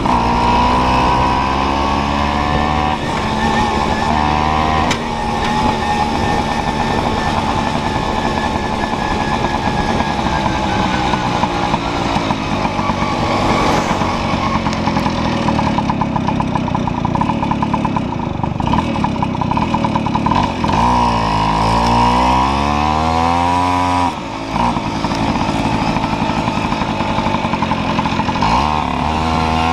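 Tomos Targa moped's small two-stroke engine running under way, its note shifting as the throttle opens and closes. About two-thirds of the way through the engine note falls and then climbs again, with a brief drop in loudness just after.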